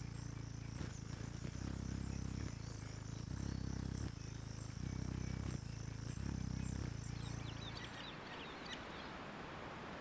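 Hummingbird wings humming low in pulses about every second and a half, over high, quickly repeated insect chirps. The humming stops about eight seconds in, leaving an even forest hiss with a few faint ticks.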